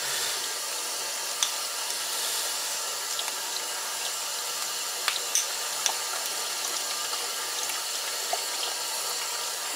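Steady hiss of water running from a sink tap, with a few light clicks from handling on the cutting board.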